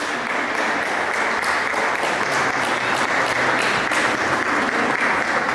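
A crowd applauding steadily, a dense patter of many hands clapping.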